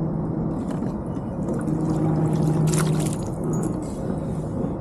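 Water sloshing and trickling around a kayak hull, over a steady low hum, with one short sharp knock about three seconds in.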